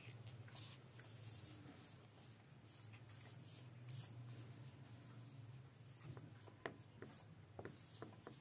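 Faint rubbing of fingers pressing flour onto marinated milkfish pieces on a plate, with a few small ticks near the end.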